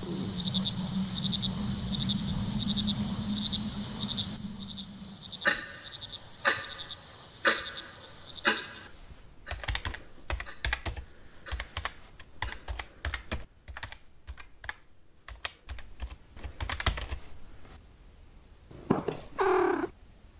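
Fast, irregular keystrokes on a laptop keyboard, after a steady hum with a tick about once a second. Near the end there is a brief pitched sound.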